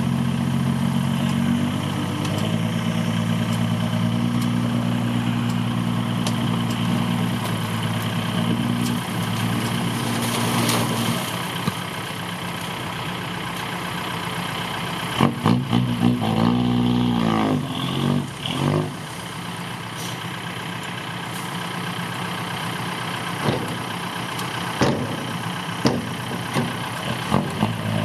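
Six-wheel dump truck's engine running steadily, then revving up and down about halfway through. Several short knocks or clunks follow toward the end.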